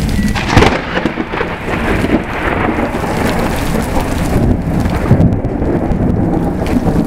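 Close lightning strike: a sharp thunderclap about half a second in, the loudest moment, then thunder rumbling on over steady rain.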